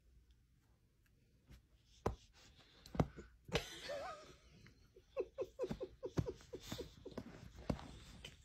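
A person laughing softly, first in a breathy burst a little before halfway, then in a run of short quiet pulses of about four or five a second. A couple of faint knocks come before it.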